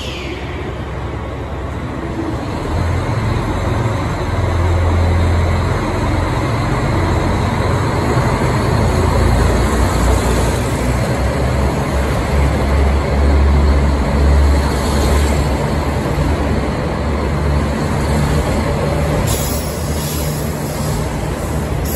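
KiHa 261 series diesel train pulling out and rolling past, its diesel engines running with a low drone under the rumble of the wheels, growing louder a few seconds in.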